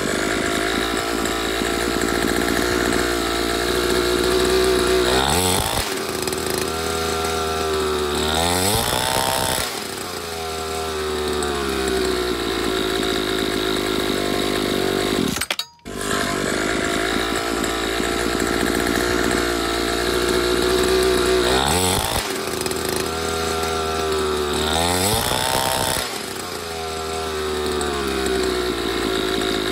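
Small two-stroke engine of a 49cc mini dirt bike running, its revs rising and falling as the throttle is blipped twice, then after a brief break about halfway, twice more.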